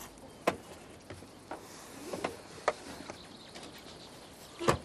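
Scattered light knocks and steps on a gravel road, then near the end a small jeep's door slamming shut, much the loudest sound.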